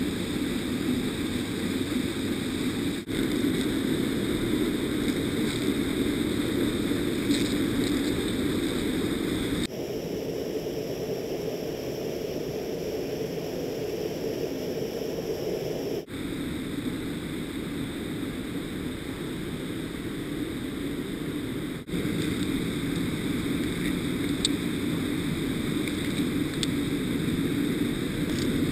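Steady rush of a mountain torrent and its small waterfalls. The level and tone shift abruptly a few times.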